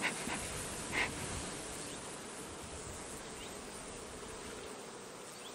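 Honeybees buzzing steadily around an opened hive, with one short puff of air from a bellows bee smoker about a second in.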